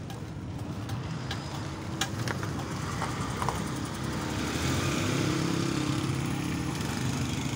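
Motorcycle engine idling with a steady low hum, growing louder about halfway through. There are a couple of sharp clicks about two seconds in.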